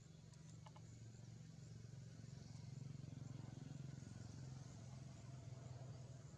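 Faint low drone of a distant motor engine, swelling toward the middle and easing off again. Faint high chirps repeat regularly over it.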